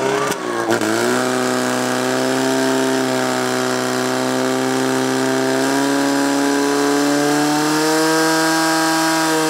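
Portable fire pump's engine running at high revs under load, driving water through the attack hoses to the nozzles. The pitch settles about a second in and climbs a little twice later.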